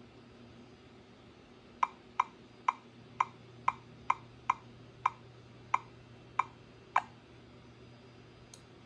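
Key-press clicks from a Clover touchscreen's on-screen number pad: eleven sharp clicks, about two a second, as a ten-digit phone number is tapped in digit by digit and the entry is confirmed. A fainter tick follows near the end.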